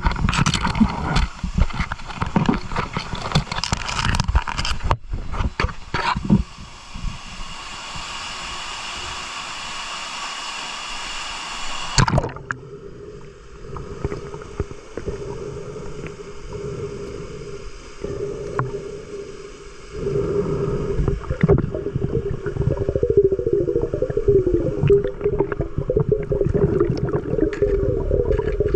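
Muffled water noise and repeated knocks from handling, heard through a camera's waterproof case. About twelve seconds in, the sound changes abruptly to a duller rumble under a steady low hum.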